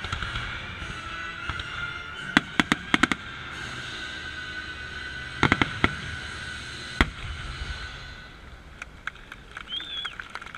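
Fireworks going off: sharp bangs in quick clusters about two and five seconds in and a single bang near seven seconds, then dense crackling toward the end. Show music plays underneath.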